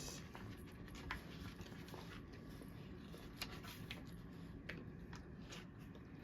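Faint handling of the snack box's packaging: a few soft clicks and rustles over a low room hum.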